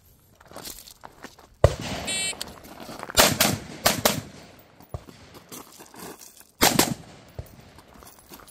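FERFRANS AR-pattern rifle firing short strings of shots, several groups with pauses between.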